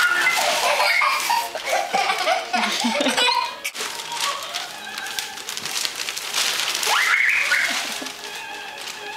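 Giggling and laughter in several bursts, the loudest near the start and another about seven seconds in.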